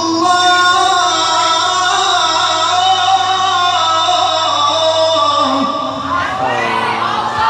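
A male qari's voice, amplified through a microphone and PA in a large hall, holding a long ornamented melismatic note in mujawwad-style Quran recitation. About six seconds in, several voices from the audience call out over it.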